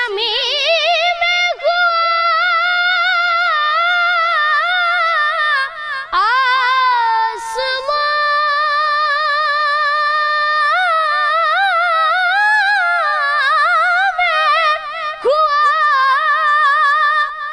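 A ten-year-old boy's high voice reciting a naat unaccompanied, holding long notes with a wavering vibrato and melismatic turns. The line breaks briefly about six seconds in, then the held notes resume.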